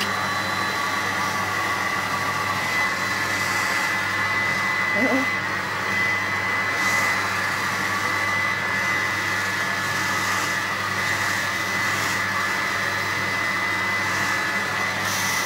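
Hair dryer running steadily: a constant blowing rush with a steady high whine.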